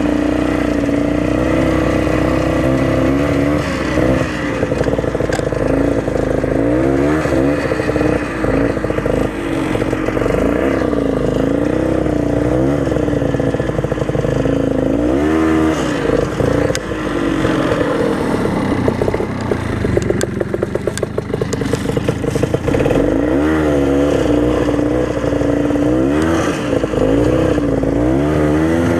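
Old Ski-Doo snowmobile's two-stroke engine running under way, its pitch rising and falling again and again as the throttle is opened and eased off.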